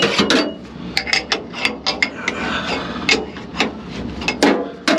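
Irregular clicks and clanks of a metal fitting being tightened by hand in the rear valve cabinet of a stainless steel milk tanker trailer, with a few sharper knocks near the end.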